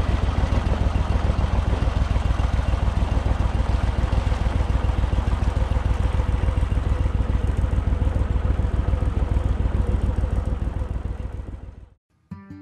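A 37 hp mud motor on an aluminium flat-bottom boat running steadily at cruising speed, with a fast even pulsing under a dense rush of noise. It fades out near the end.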